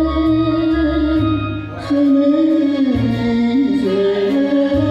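Music: a 1930s-style Japanese popular song (ryūkōka) with a wavering melody line over band accompaniment and a bass that changes note every second or two.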